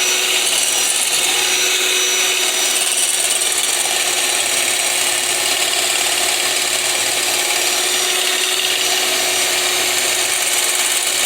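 Electric blender motor running at a steady speed, emulsifying egg, apple cider vinegar and oil into a thin mayonnaise.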